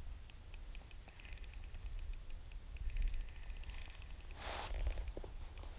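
Spinning reel ticking in irregular runs of small clicks as a large fish pulls against the bent rod, with a short rush of noise about four and a half seconds in.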